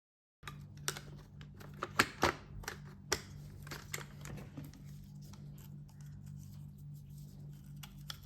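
Light clicks and knocks of small hard objects being handled, several sharp ones in the first three seconds and fewer after, over a steady low electrical hum.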